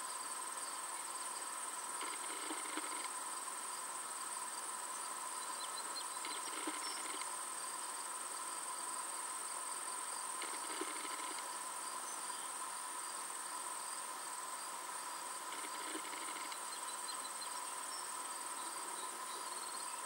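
Steady chorus of insects, a continuous high-pitched trill with a lower steady tone beneath it.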